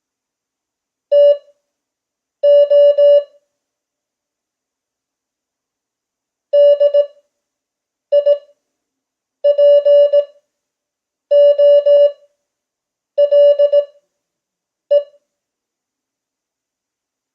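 Morse code (CW) practice tone near 600 Hz keying characters at 5 words per minute with Farnsworth spacing: each character is sent briskly as short and long beeps, with long pauses between characters. Two characters, a longer gap, then six more.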